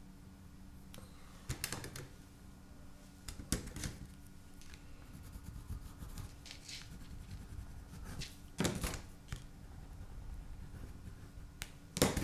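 A few sharp clicks and taps as Neocolor II wax pastel crayons are handled in their metal tin and set down on the table. Between the clicks come short scratchy strokes of a pastel on paper.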